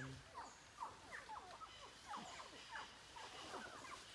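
Faint chorus of birds chirping: many short falling calls overlapping one another, with a thin steady high tone joining about halfway through.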